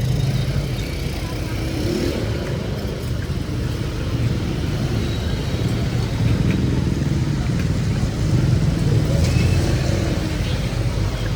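Steady low hum of motor-vehicle engines in city street traffic.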